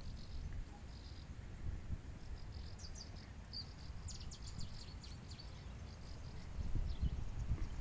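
Outdoor ambience: a low rumble on the microphone with a scatter of faint high chirps, busiest in the middle.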